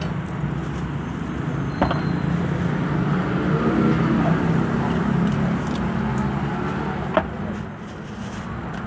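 Street background noise: steady road traffic with indistinct voices. Two sharp clicks cut through it, one about two seconds in and one near the seven-second mark.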